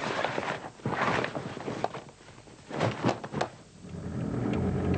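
Rustling of football shoulder pads being pushed into a nylon sports bag, with a few sharp knocks about three seconds in. About four seconds in, a car engine starts to run steadily, heard from inside the cabin.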